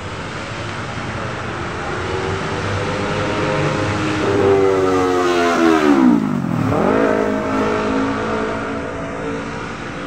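A motor vehicle's engine close by, growing louder and then fading; a little past the middle its pitch dives steeply and then picks up again.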